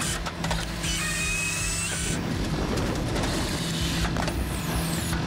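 Halverson HWP-100 firewood processor on a John Deere compact track loader working logs: the loader's engine runs steadily under hydraulic load, with a high whine in stretches as the processor cuts and splits.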